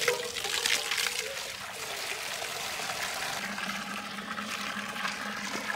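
Water being poured out, louder for the first second or so and then trickling on more softly.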